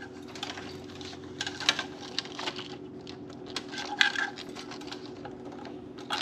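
Scattered light clicks and rattles of an electrical wire and hands being worked along a motorcycle's frame under the gas tank, over a steady low hum.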